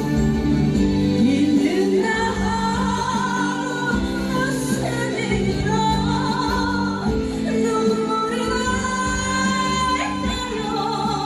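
A woman singing a slow Korean song, her voice gliding through long phrases over instrumental accompaniment.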